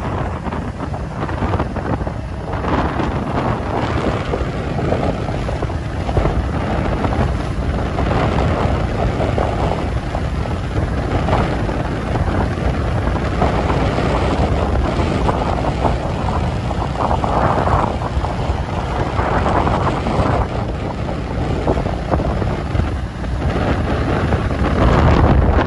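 Wind buffeting the microphone: a loud, uneven rushing noise, heaviest in the low end, that swells and eases with the gusts.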